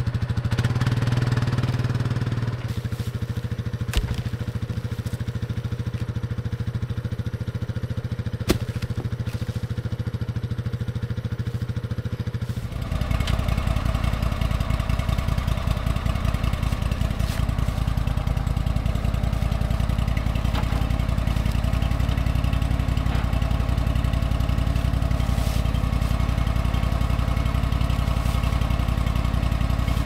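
ATV engine running steadily, with two sharp clicks. About twelve seconds in it gives way to a small crawler loader's engine idling, louder and with a denser, even beat.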